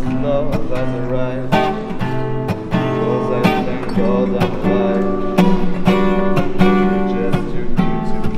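Background music: a song carried by strummed acoustic guitar, at a steady strum.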